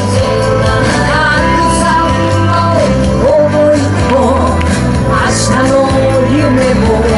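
Loud pop-rock song with a steady bass line and a melody that slides between notes.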